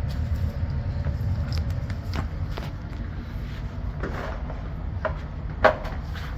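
Scattered light clicks and knocks of small objects being handled, the loudest about five and a half seconds in, over a steady low rumble.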